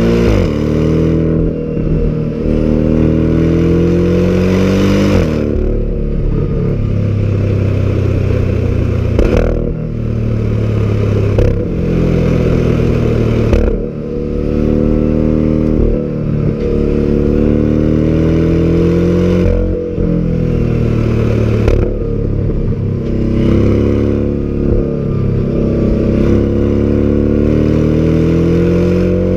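Porsche mid-engine sports car's engine and exhaust under hard acceleration. The pitch climbs through each gear, then drops sharply at each upshift, many times over, with short lulls and cracks at the gear changes.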